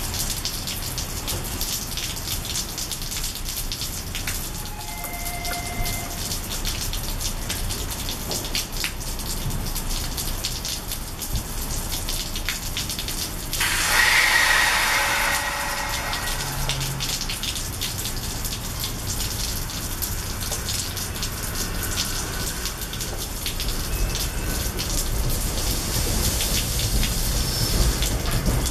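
Steady rain falling, with a low rumble from the train underneath. About fourteen seconds in, a louder hiss rises and fades over two seconds. Near the end the low rumble grows as the train starts to pull out.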